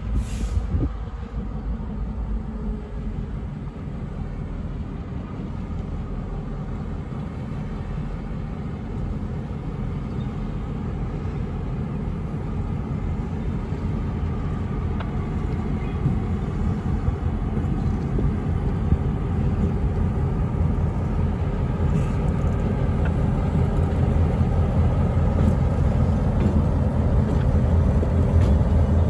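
Pair of diesel freight locomotives running at low speed as they approach, their engine rumble growing steadily louder.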